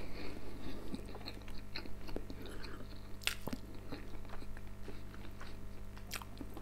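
A man chewing a mouthful of food, with many small wet mouth clicks. Two sharper clicks come about three seconds in and near the end.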